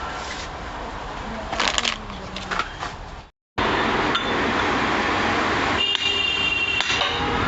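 Workshop noise: sharp metal clinks and knocks over a steady background noise, cut off abruptly for a moment about three and a half seconds in, then a louder steady noise with ringing metallic clinks near the end.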